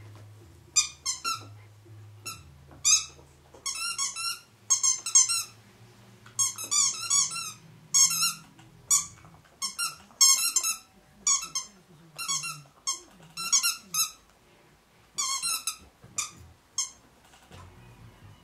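A small rubber squeaky toy squeaks over and over in quick high bursts, often in pairs, as a twelve-week-old puppy bites and chews it.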